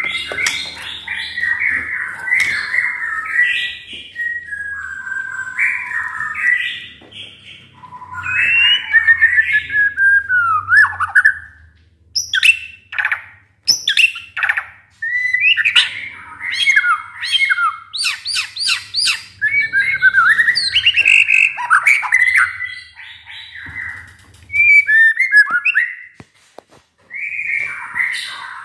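White-rumped shama in full song: a long, varied stream of loud whistled phrases and gliding notes, with a run of quick, sharp clicking notes in the middle and a few brief pauses.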